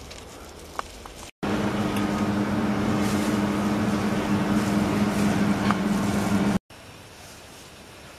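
Steady machine hum with a low, even drone, starting abruptly about a second and a half in and cutting off suddenly near the end, between stretches of faint background noise.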